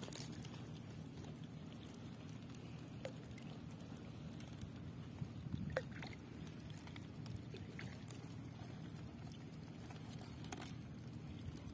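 Small clicks, rustles and drips of water as a fish is worked out of a nylon gill net by hand, over a steady low hum.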